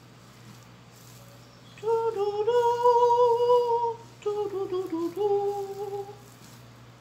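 A woman humming a short tune in two phrases. The first phrase is a long held note starting about two seconds in. The second, after a brief break, wavers and dips before settling on a held note.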